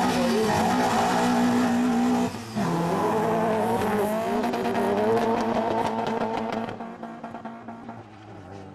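Two cars launching off a drag strip start line at full throttle: engines held at high revs, a brief dip at a gear change about two seconds in, then the revs climbing again. The sound fades as the cars pull away down the strip from about seven seconds.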